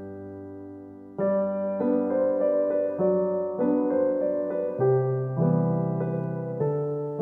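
Solo piano background music: a held chord fades away, then about a second in a new chord comes in and gentle notes follow one after another at an unhurried pace.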